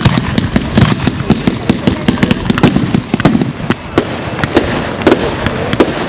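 Aerial fireworks in a display, bursting in quick succession: many sharp bangs, several a second and irregular, over a continuous low rumble.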